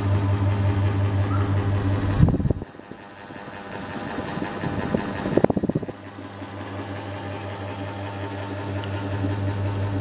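Niga FC05-50 18-inch mini ceiling fan running with a steady electric motor hum. About two seconds in, the hum drops out amid a few crackling bumps. It returns about six seconds in and builds back up.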